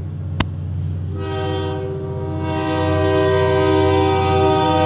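Diesel locomotive's air horn sounding for a road crossing. It breaks off just before the start, then sounds again about a second in with one long blast held almost to the end. A steady low rumble runs underneath, and a single sharp click comes in the pause.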